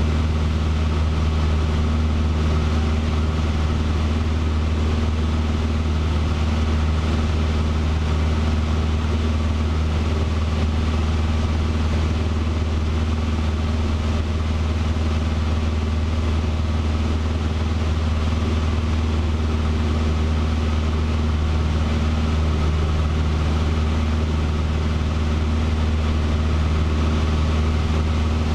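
Cessna 150's four-cylinder Continental O-200 engine and propeller droning steadily in flight, heard inside the small cabin.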